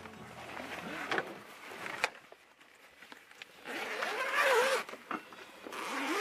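Red deer stags roaring in the rut: rasping, wavering calls, a fainter one near the start, the loudest about four seconds in, and another beginning near the end.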